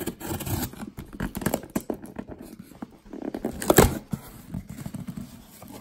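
Corrugated cardboard shipping box being cut open with a utility knife and its flaps pulled up: a run of short, scratchy scrapes and crackles, with one louder rip about four seconds in.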